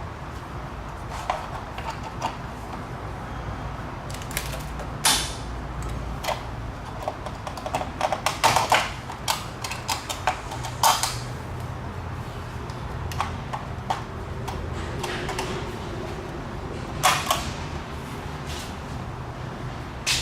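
Hand tools and metal parts clicking and clanking in an irregular run of sharp knocks, with a cluster about halfway through, over a steady low hum.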